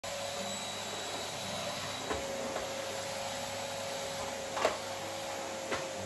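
Canister vacuum cleaner running steadily, a constant rushing hiss with a faint steady whine. A few light knocks sound over it, the loudest about three-quarters of the way through.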